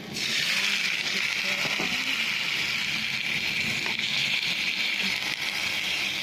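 Raw chicken pieces hitting hot oil in a steel wok with sautéed onion, garlic and ginger, setting off a loud, steady sizzle that starts all at once.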